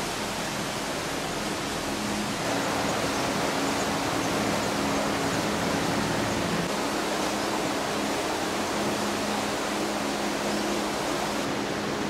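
Steady rushing of flowing water, an even noise with a faint low hum beneath it.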